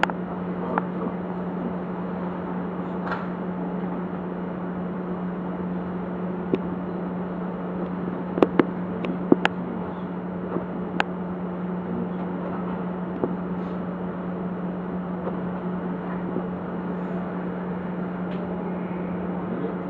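Steady electrical hum of a standing electric train's onboard equipment: one unchanging low tone over a fan-like hiss. A cluster of sharp clicks comes about eight to eleven seconds in.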